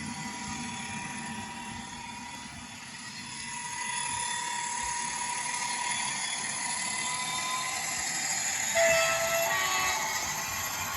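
Model train running on the layout: a steady, high motor whine and running noise, with a brief short tone about nine seconds in.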